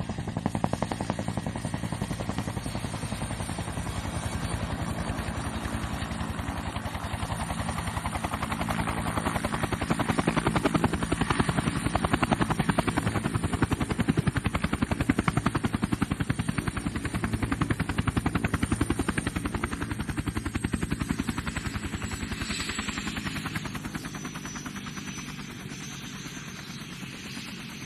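Twin Huey helicopter with rapid rotor blade slap over a high turbine whine, growing louder to a peak near the middle. Toward the end the whine drops in pitch and the sound fades.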